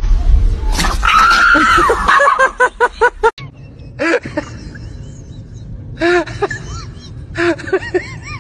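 Dogs whining and yelping: a long high whine, then a quick string of short yips. After a sudden break these give way to short rising-and-falling yelps in small clusters.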